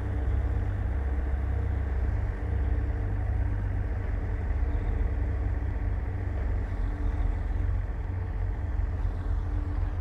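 Bulldozer's diesel engine running steadily, a low, even drone with a faint hum above it, dipping briefly about two seconds in.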